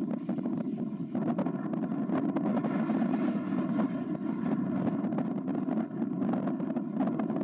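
Steady low rumble of marine engines from ships moving through the harbour.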